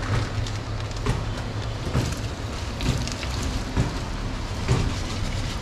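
Hot oil sizzling in a large aluminium cooking pot as ground spices are shaken in from a plastic bag, with a steady low rumble underneath.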